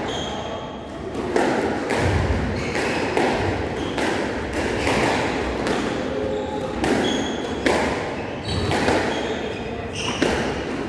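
A squash rally: the ball is struck by racquets and smacks off the walls in a run of sharp cracks about every half-second to second. Short high squeaks come from court shoes on the wooden floor in between.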